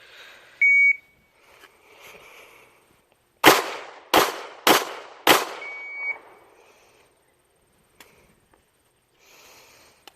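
A short electronic beep, then about three seconds later four 9mm pistol shots from a Glock 26, fired about half a second apart.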